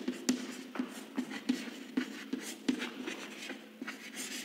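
Chalk writing on a blackboard: a run of short, irregular taps and scratches as the letters are written by hand.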